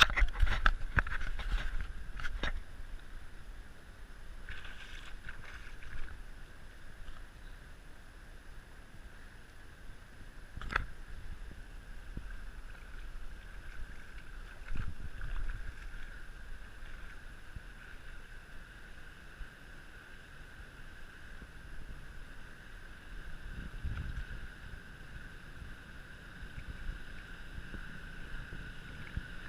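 Muffled, steady motor noise with a continuous whine and low rumble during a vehicle's river crossing, with a few sharp knocks near the start and about ten seconds in.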